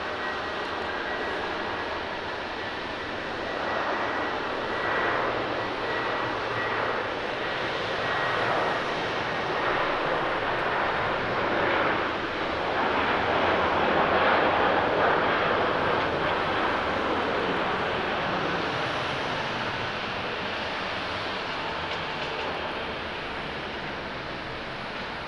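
Boeing 737-800 airliner's CFM56-7B turbofan engines at takeoff thrust as it rolls down the runway, lifts off and climbs away. The jet noise grows to its loudest about twelve to sixteen seconds in, then slowly eases. A thin, steady high whine runs through the first ten seconds or so.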